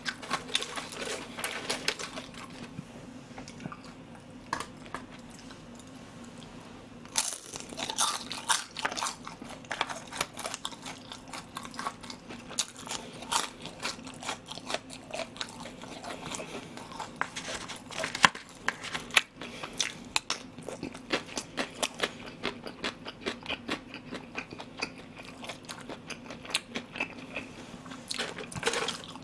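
Close-up crunching and chewing of battered, deep-fried pork (soy-sauce tangsuyuk): many crisp crackles as the fried coating breaks between the teeth. The crunching is sparse for the first several seconds and becomes dense about seven seconds in.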